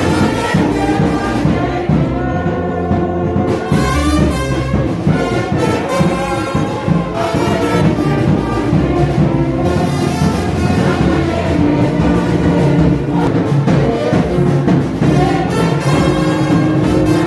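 Brass band music: several brass instruments playing held, overlapping notes at a steady, loud level.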